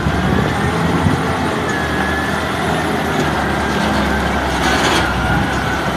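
Heavy diesel engine of a large container-handling forklift running steadily under load, with a faint high whine partway through.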